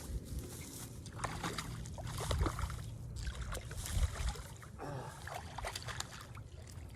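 Wind buffeting the microphone in a steady low rumble, with water splashing and sloshing as a hooked bass is fought at the surface.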